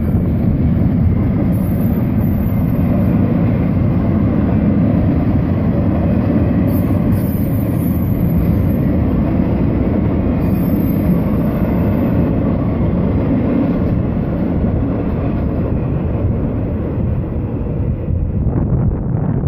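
Florida East Coast freight train's intermodal cars rolling past at a road crossing: a steady, loud rumble and rattle of wheels on rail, easing slightly as the rear of the train passes near the end.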